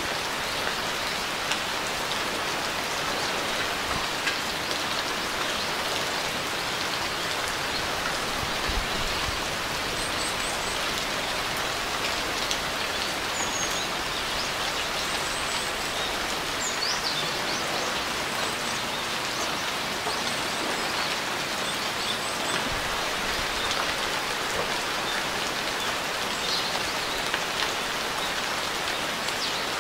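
Steady rain falling, an even patter with no let-up. Faint short, high bird chirps and a quick falling whistle come through the rain in the middle stretch.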